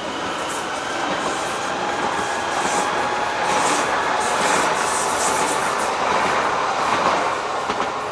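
Electric commuter train running along the tracks: a steady rush of wheels on rail that swells as it passes and begins to fade near the end as it moves away.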